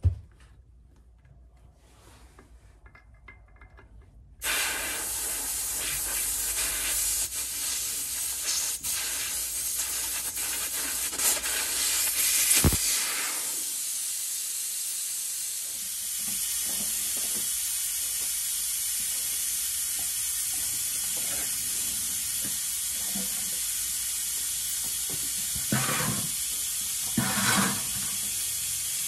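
Air hissing out of a tractor's rear turf tyre through the open valve stem with its valve core removed, as the tyre is let down to zero pressure before filling with liquid ballast. The hiss starts suddenly about four seconds in and then runs steadily, with a sharp click near the middle.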